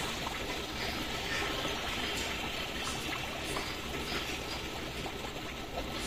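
Running water trickling and splashing steadily, an even rush with small splashes scattered through it.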